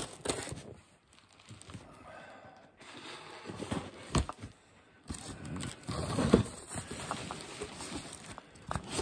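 Packing material around Kilner jars being rustled and pulled apart by hand, with a couple of sharp knocks, the loudest about six seconds in.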